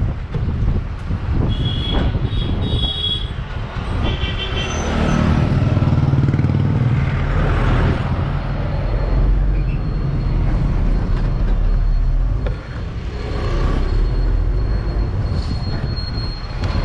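Bus engine running and road noise from a moving bus, heard through its open window, with a few short high beeps about two to four seconds in.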